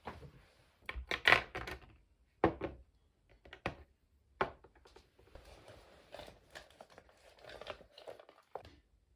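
Close-up handling sounds: a run of sharp clicks and knocks, loudest about a second in, with rustling and crinkling between them.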